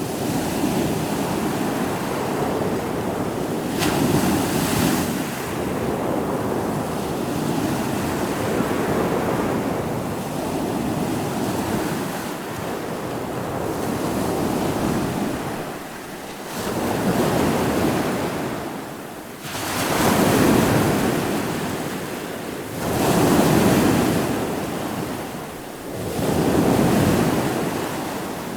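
Ocean surf: waves breaking and washing on the shore in a continuous rush. In the second half it swells and ebbs in surges about every three seconds.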